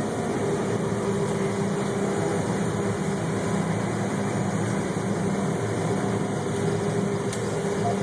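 Combine harvester running steadily under load while harvesting soybeans, heard from inside the cab as an even mechanical hum with a constant drone.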